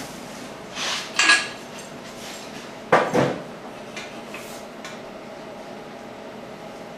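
Sharp metallic clanks from a steel engine stand holding an LS V8 block as the stand is worked to turn the block over: a pair of clanks about a second in, another pair about three seconds in, then a few lighter knocks.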